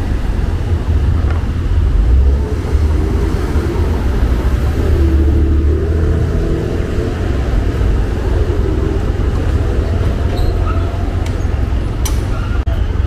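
Steady city street traffic: cars and buses running past, a continuous deep hum with a few faint voices and sharp clicks near the end.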